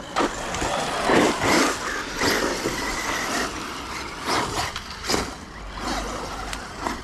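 Electric RC cars running: a rough rush of noise that swells and fades with the throttle, with a brief high motor whine in the first few seconds.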